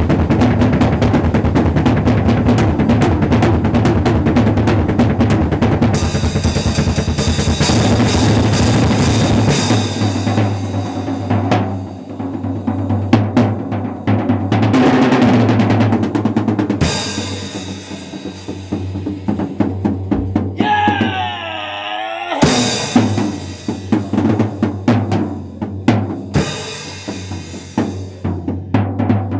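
Acoustic drum kit solo: fast, dense rolls across snare, toms, bass drum and cymbals for about the first ten seconds, then sparser separate hits with short pauses between them.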